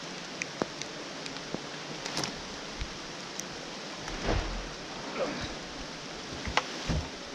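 Steady rain hiss with scattered drips and light knocks, and a dull thump about four seconds in.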